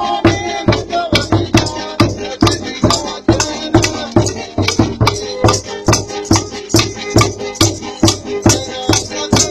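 Music with a steady quick beat: evenly spaced percussion strokes, about two to three a second, with bass hits and a held melody line over them.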